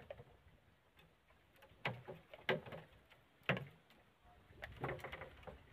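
Handling noises: a few short, irregular clicks and knocks from fishing tackle being worked by hand, with a cluster of them near the end.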